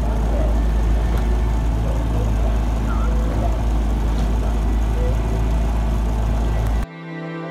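Steady low rumble of wind and a running motor, as heard from a boat on the water, with a few faint short chirps. It cuts off suddenly near the end and soft, slow music begins.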